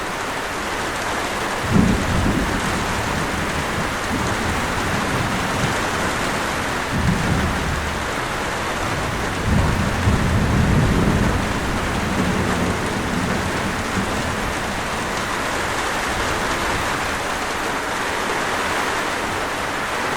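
Steady heavy rain with thunder: a sudden low crack about two seconds in, then rolling rumbles around seven seconds and again for several seconds from about nine and a half seconds.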